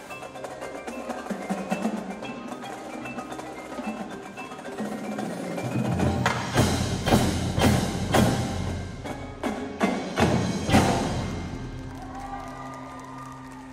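Indoor percussion ensemble playing: marimbas and other mallet keyboards carry pitched notes for the first few seconds, then drums and cymbals build into a loud run of sharp hits over heavy bass from about six to eleven seconds in. It settles into held low notes and softer mallet playing near the end.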